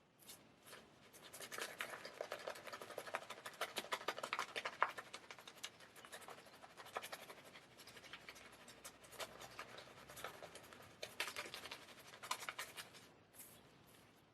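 Straight razor scraping through lathered stubble: a faint, fine crackling in a long run of strokes, then several shorter passes with brief pauses between them.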